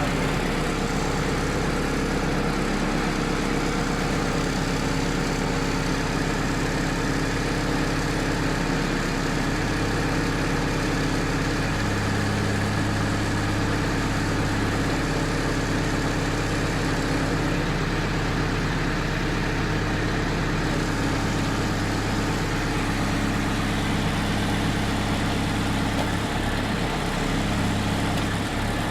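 Engine of a crawler-mounted hydraulic drilling rig running steadily. A deeper hum grows stronger about a third of the way in.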